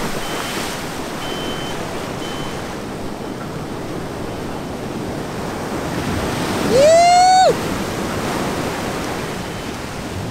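Surf breaking and washing up the beach in a steady rush of whitewater. About seven seconds in, a single high-pitched yell rises in pitch and is held for under a second before stopping abruptly.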